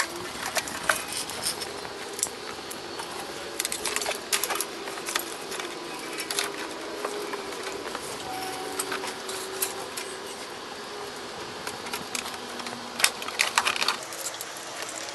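Irregular small clicks, taps and light rattles of wiring and parts being handled while a wiring harness is run under a golf cart's frame, with a short flurry of clicks near the end.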